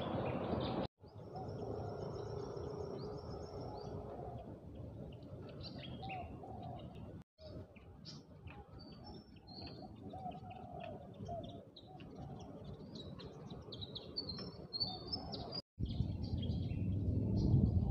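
Small birds chirping and twittering over and over, with a quick high trill starting about a second in, over a low steady outdoor background noise. The sound cuts out for an instant three times.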